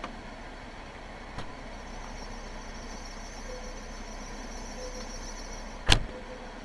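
A faint high whistle in a Lada Kalina 2194 sets in about two seconds in over steady car noise. It stops at a loud, sharp click near the end.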